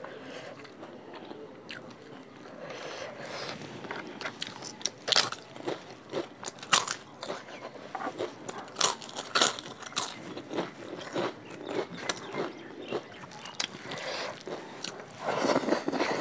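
Close-up crunching and chewing of a crisp fried papad eaten with rice: after a quiet first few seconds, a run of sharp crunches every second or so, the loudest between about five and ten seconds in, with more chewing near the end.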